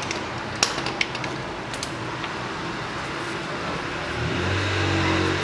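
A few light metallic clicks as parts are handled under the engine, then a motor vehicle's engine hum that swells in about four seconds in and holds steady.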